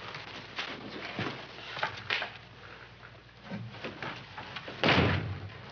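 Soft movement noises, scattered rustles and light knocks, then a short, louder rush of noise about five seconds in from a wooden door being opened.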